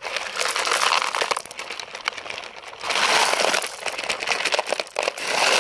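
Gravel stones sliding and clattering out of a tipped plastic toy dump truck bed, a dense rattling rush in two long surges with a short break about three seconds in.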